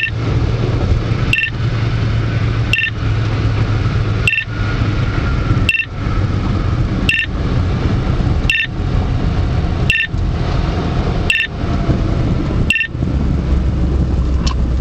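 Beltronics Vector 955 radar detector sounding an alert: a short beep about every second and a half, about ten in all, as it picks up a fixed Ka-band 35.1 GHz speed radar. Steady road and engine noise inside the car's cabin runs underneath.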